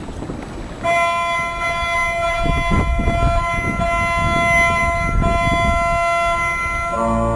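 Electronic organ holding one sustained chord, changing to a fuller, lower chord near the end.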